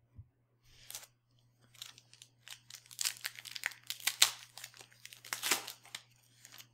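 A trading-card pack's foil wrapper being torn open and crinkled by hand, a dense run of sharp crackles that goes on for several seconds.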